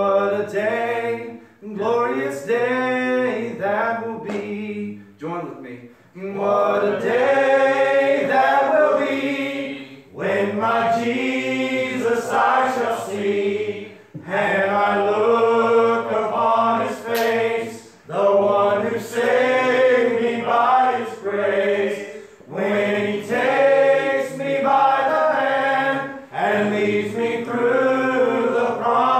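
A small group of men singing a hymn together without accompaniment, in sung phrases of a few seconds with short breaks between them.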